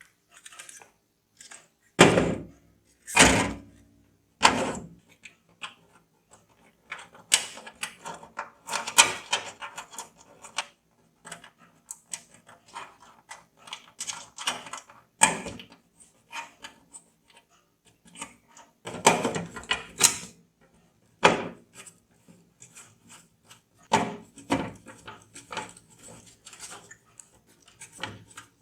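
Computer parts and hardware being handled and fitted during a PC build: irregular clicks, rattles and rubbing, with several sharp knocks, loudest a few seconds in and again about two thirds of the way through.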